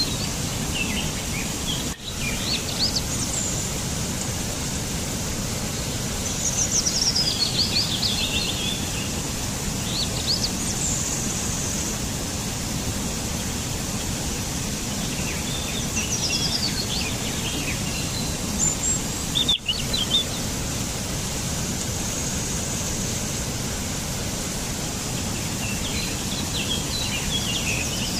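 Songbirds singing short phrases every few seconds, some as quick falling trills, over a steady outdoor background hiss.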